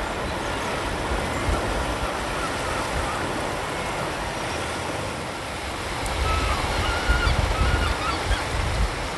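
Small waves breaking and washing up on a sandy beach in a steady surf hiss. The surf grows louder for the last few seconds, with a few brief bird calls over it.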